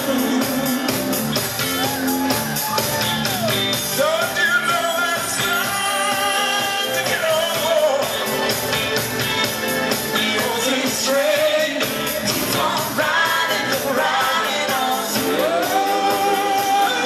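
Live pop band music with a male lead singer singing into a microphone over the band.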